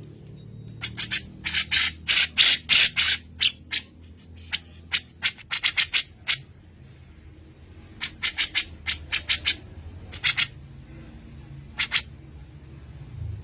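Recorded songbird calls from a cucak jenggot and cililin bird-song mix: rapid, sharp, harsh chattering notes in several fast clusters separated by short pauses.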